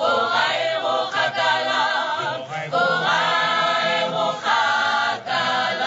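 A mixed group of men's and women's voices singing a cappella in parts. It is a lively, chant-like choral song.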